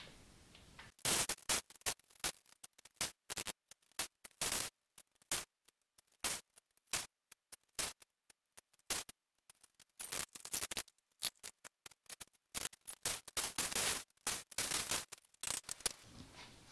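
Corded electric impact wrench hammering in short bursts on the tractor's rear wheel hub bolts, working them loose, with gaps between the bursts.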